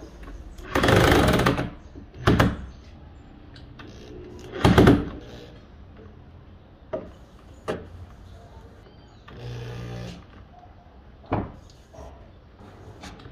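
Corded electric drill running in several short bursts as it bites into a thick wooden plank. The three loudest bursts come in the first five seconds, and a softer humming run comes later. Sharp clicks and knocks of the tool and wood come in between.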